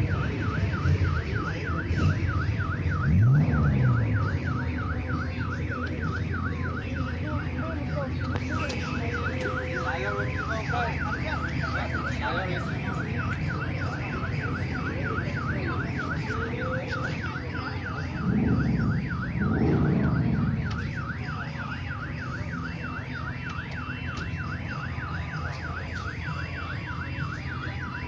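Police car electronic siren in yelp mode, sweeping rapidly up and down about three times a second without a break. A deeper, louder swooping sound rises and falls briefly a few seconds in and twice around two-thirds of the way through.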